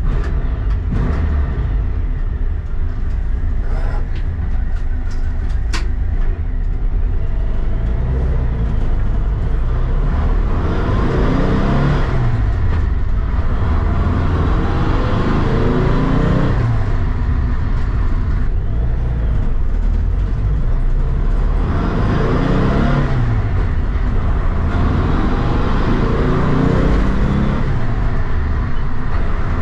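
Air-cooled VW flat-four engine on freshly synchronised twin Weber 48 IDA carburettors driving a VW Bus, heard from inside the cabin. The engine note climbs in pitch about four times, each climb ending in a drop at a gear change. There is a sharp click about six seconds in.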